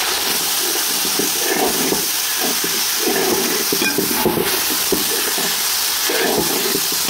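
Tomatoes, small onions and green chillies sizzling steadily in hot oil in a pan with a constant light crackle as the tomatoes cook down to a pulp.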